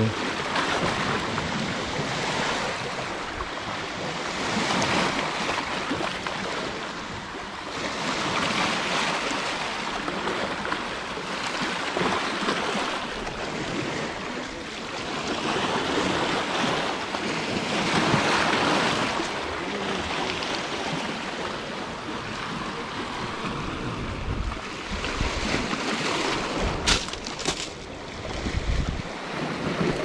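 Small sea waves washing in over boulders and pebbles, the surf swelling and falling back every few seconds, with wind buffeting the microphone. A sharp click near the end.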